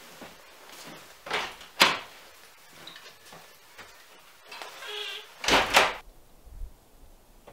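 A wooden door being opened as someone walks out: a sharp latch click about two seconds in, shuffling steps and rustling, a short squeak, then a loud scraping burst near the end.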